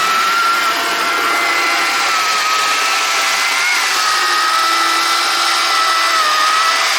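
Chainsaw running at full speed with a steady high-pitched whine.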